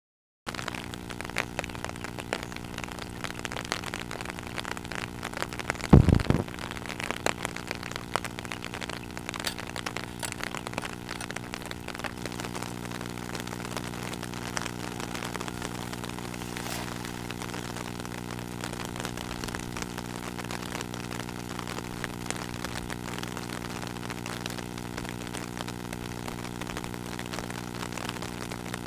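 A motor engine running at a steady drone, with one loud low thump about six seconds in.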